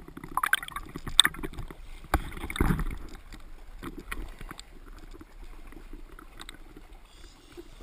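Lake water splashing and sloshing against a GoPro's underwater housing at the surface, with sharp splashes and knocks in the first three seconds, then gentler lapping.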